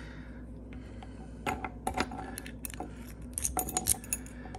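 Metal clicks and clinks of a ring of keys and a metal ignition lock cylinder being handled, in scattered taps, then a quick cluster of jingling clinks near the end.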